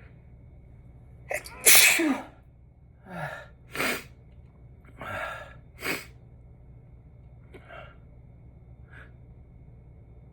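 Person sneezing over and over: a loud sneeze about two seconds in, then two more about two seconds apart, each after a quick gasping breath. A few faint breaths follow.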